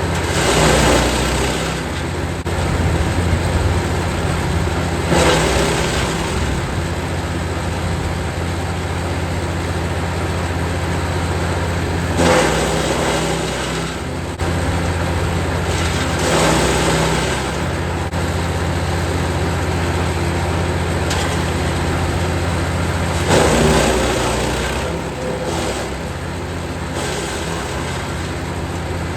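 Jansen 1500e GTS wood chipper running with a steady engine hum, with five surges of crackling chipping noise lasting a second or two each as branches are fed in and shredded.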